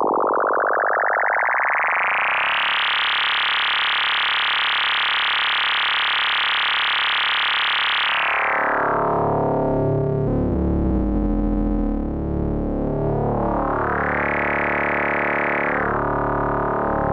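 K-ACCUMULATOR synthesizer oscillator module sounding a continuous tone under audio-rate amplitude modulation and sync. Its timbre sweeps from dull to a bright, buzzing wall of overtones within the first few seconds, holds there, then closes down again, with a second, smaller brightening sweep near the end.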